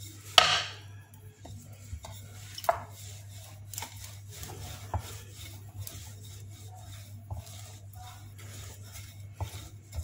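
A wooden rolling pin knocks once on a wooden pastry board, then rolls back and forth over floured pizza dough with soft rubbing and small clicks. A low steady hum runs underneath.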